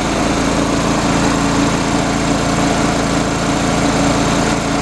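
North Star gas-engine air compressor running steadily, heard from about 20 feet away, its pump building tank pressure toward the 175 psi cut-off.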